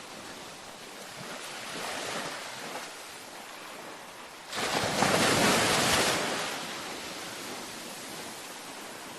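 Gentle ocean waves washing onto a beach, with one wave breaking suddenly about halfway through, the loudest moment, then washing out and fading.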